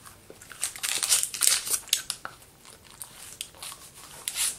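Paper gum wrapper crinkling and rustling in irregular bursts as a piece of gum is unwrapped and pushed into the mouth, busiest in the first half, with another burst near the end.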